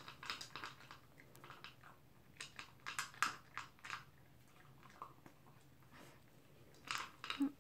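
Toy poodle eating from a bowl: irregular bursts of crunching and chewing, with a pause of a couple of seconds before a last burst near the end.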